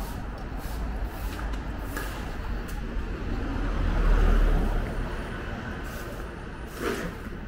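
City street traffic: a motor vehicle's engine rumble swells as it passes, loudest about four seconds in, over steady roadway noise.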